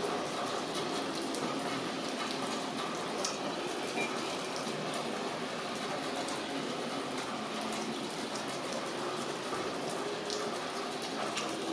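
Steady rain falling, with many individual drops ticking sharply on close surfaces.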